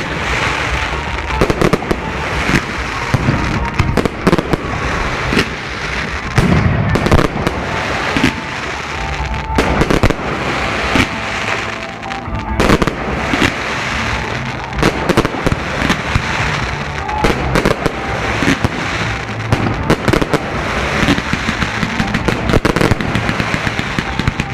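Fireworks display: a continuous, irregular barrage of aerial shell bursts, with many sharp bangs and crackling one after another.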